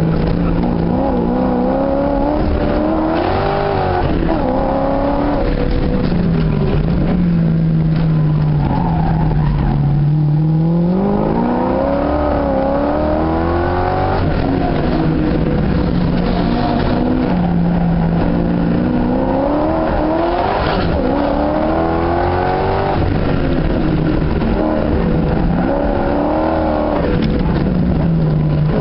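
Car engine heard from inside the cabin while being driven hard around a track. It revs up through the gears and drops back several times as the car accelerates and lifts off for corners.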